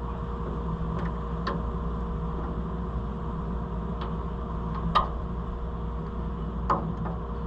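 A few sharp metallic clicks and taps of hand tools working at a stuck pin on combine-head metal, over a steady machine hum.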